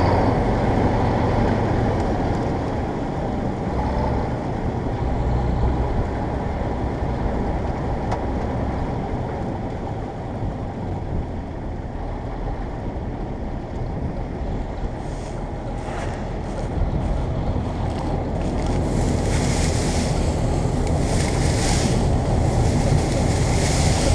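Bizon Z040 combine harvester's diesel engine and threshing machinery running steadily, heard close by, with wind buffeting the microphone. The gusts grow stronger and more frequent over the last third.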